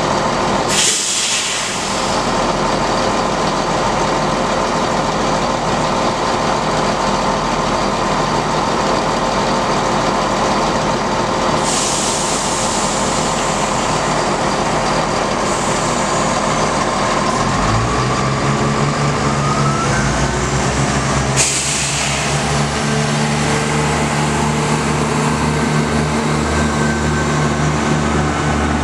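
Chiltern diesel multiple unit pulling away from the platform, its underfloor diesel engines running under power. A rising whine comes in past the middle, and a stronger low engine drone sets in about 18 seconds in.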